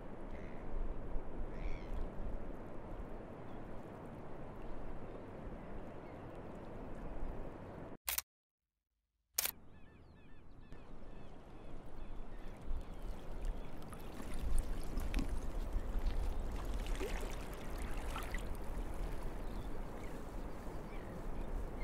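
Outdoor field-recording ambience: a steady noisy wash with a few faint chirps. It drops out to silence for about a second partway through, then returns with a low rumble and scattered rustling clicks.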